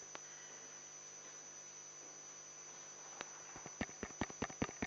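Steady electrical mains hum with no speech. From about three seconds in, a quick, irregular run of light clicks begins, several a second.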